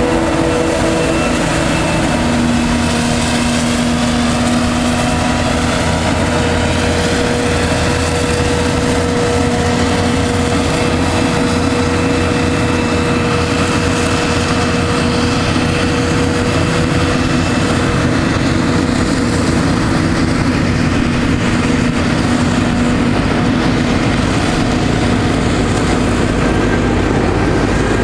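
Heavy farm machinery running steadily during maize chopping: the drone of a forage harvester's and tractors' engines, with several steady whining tones over the noise.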